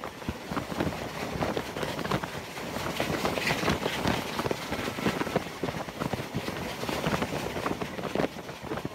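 A steam-hauled train running at speed, heard from the carriage right behind NSW 30 class tank locomotive 3016: a steady rush full of rapid, irregular clatter, with wind buffeting the microphone.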